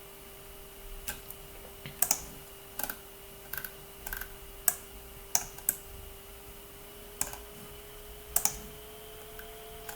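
Computer keyboard keys pressed irregularly, about a dozen sharp clicks, over a steady faint hum.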